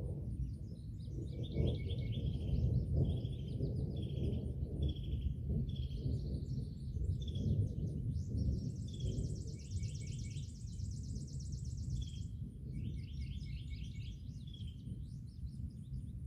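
Low rolling rumble of distant thunder, swelling about two to three seconds in, with birds singing over it in repeated short falling notes and fast trills.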